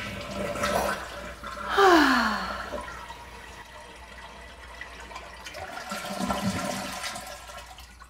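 Toilet being flushed: water rushing through the bowl, with a falling, sliding tone about two seconds in. The rush then carries on, swells again near the end and fades away.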